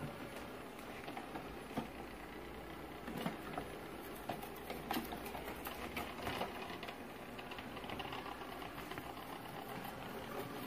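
Coredy robot vacuum running: a steady motor and brush whir, with a few short clicks and taps scattered through it as it travels.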